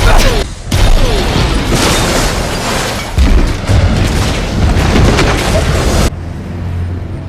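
A huge explosion: a long run of loud blasts and deep rumbling with several fresh booms, which cuts off abruptly about six seconds in.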